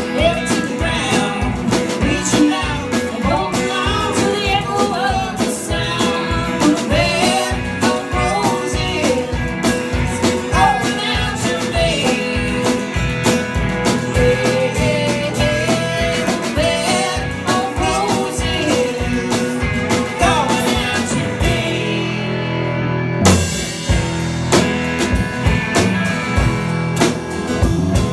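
Live band playing: a woman sings over acoustic guitar, electric guitar, bass and drums. About three-quarters of the way through the singing ends, the drums drop out for a moment and come back in with a hit, and the band carries on into an instrumental break.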